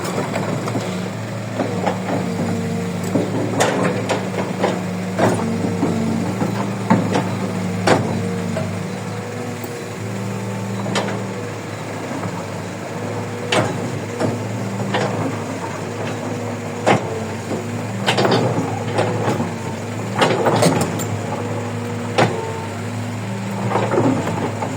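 Kobelco 135 hydraulic excavator's diesel engine running steadily, with scattered sharp knocks and clanks of the bucket working soil and rock.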